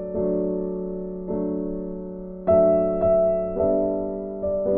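Intro music: soft keyboard chords held and changing about once a second, with no speech.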